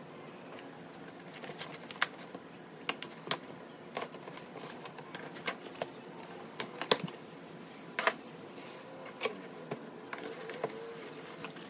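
Cardboard box being opened by hand: a knife cutting through packing tape and the cardboard flaps being pulled open, heard as scattered sharp clicks, crackles and scrapes over a faint steady hum.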